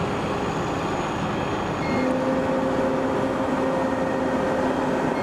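Car cabin noise while driving: steady engine and road rumble, with a steady engine drone coming in about two seconds in as the car pulls ahead. Short faint high beeps sound about two seconds in and again near the end.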